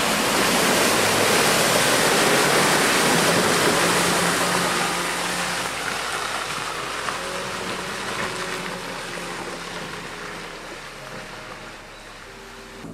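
A loud rush of splashing water, starting suddenly and fading gradually over about ten seconds, with a vehicle engine faintly running underneath, typical of an off-roader driving through water.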